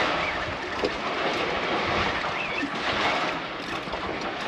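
Steady rushing noise of wind and sea around an open boat, with a low drone underneath.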